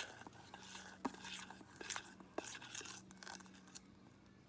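Faint handling noises: scattered light taps and rustles over a low steady hum.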